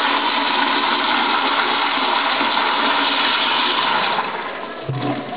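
Eljer Signature toilet flushing through an automatic flushometer valve: a loud rush of water that dies down about four seconds in, followed by a short thump about a second later.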